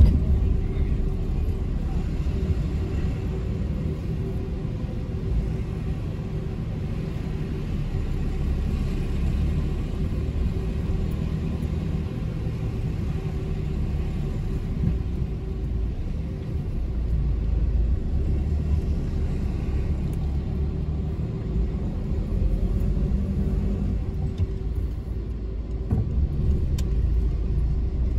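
Car driving along a road: a steady low rumble of engine and tyres that swells and eases slightly as it goes, with a faint steady hum above it.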